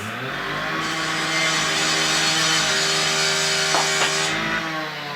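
Electric kitchen mixer motor spinning up, running at a steady speed while mixing the ingredients, then slowing down about four seconds in.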